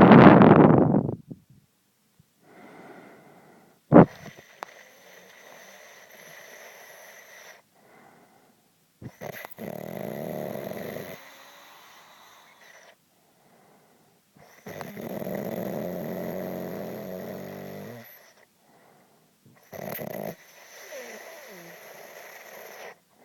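A man snoring heavily in his sleep. The loudest snore comes right at the start, then long snores recur about every five seconds with quieter breaths between them. There is a sharp click about four seconds in.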